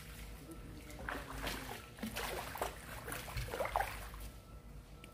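A hooked crucian carp thrashing at the water's surface: irregular splashes and slaps of water as it is played on the line, the strongest a little under four seconds in.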